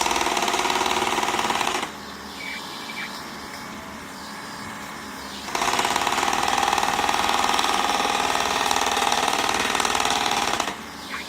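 Excavator-mounted hydraulic post pounder hammering with rapid, even blows in two bursts: the first stops about two seconds in, and the second starts about halfway through and runs about five seconds. A quieter steady background sound carries on between the bursts.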